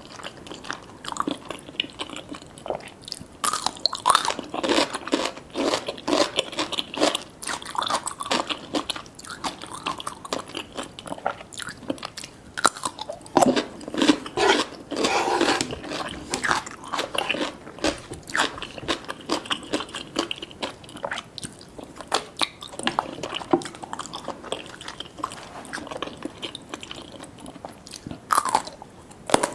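Close-miked eating sounds: a person biting, chewing and crunching food with many irregular crisp crunches.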